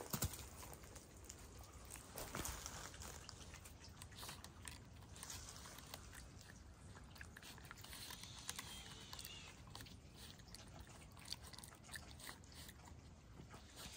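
Coati gnawing and pulling at a split wooden log with its teeth and snout, faint irregular crunches and clicks of wood as it works at a hidden treat.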